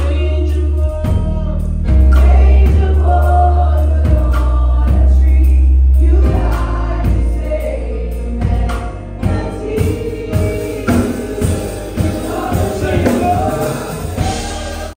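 Live gospel worship music: singing over a heavy bass line, with a steady beat coming in about six seconds in.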